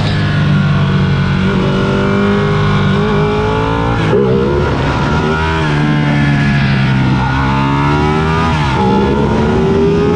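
Sport motorcycle engine under way, pitch climbing as it pulls through the gears, with a brief drop at each shift, over a low rush of wind noise.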